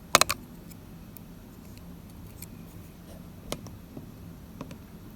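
Small metal lock parts being handled as a challenge lock is taken apart: a couple of sharp clicks near the start, then a few faint, scattered ticks.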